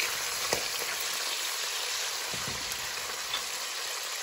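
Tiger prawns and sliced garlic frying in olive oil in a pan, a steady sizzle, with one light knock about half a second in.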